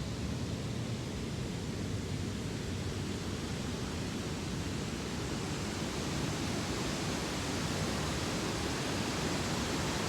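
Waterfall rushing steadily, an even continuous wash of water noise that grows a little louder about six seconds in.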